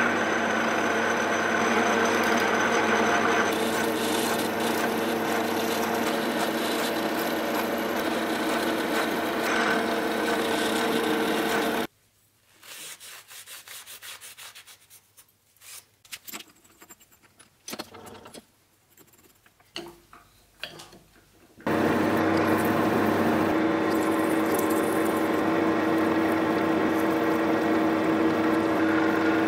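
Milling machine spindle running steadily while a twist drill cuts into a metal block, then cutting off abruptly. Then comes a quiet stretch of small clicks and rubbing as a rag wipes chips off the workpiece. About 22 seconds in, the spindle runs again at a lower pitch as a countersink bit chamfers the drilled holes, throwing off chips.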